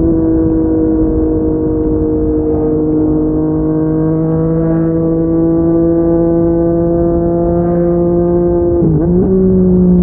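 Yamaha MT-09's inline three-cylinder engine through a Yoshimura R55 slip-on exhaust, running at fairly steady revs while riding, its note slowly falling. About nine seconds in the note briefly dips, then settles slightly higher.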